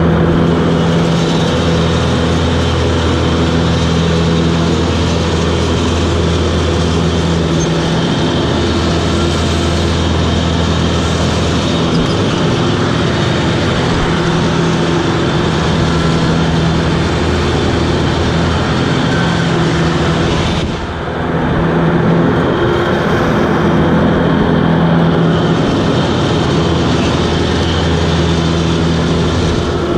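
Toro Groundsmaster 7210 zero-turn mower running steadily with its rotary cutting deck engaged, the engine's even drone under a broad rush of blades and cut grass. The sound dips briefly a little over two-thirds of the way through, then picks up again.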